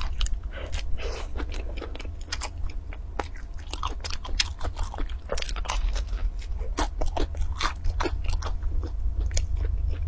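Close-up biting and chewing of a slice of pizza: many irregular sharp crunches, several a second, over a steady low hum.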